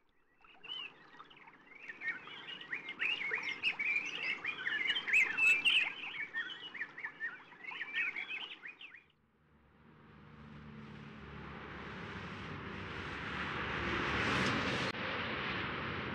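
Small songbirds chirping busily, many quick overlapping chirps, stopping abruptly about nine seconds in. A steady rushing noise with a low rumble takes over and slowly grows louder.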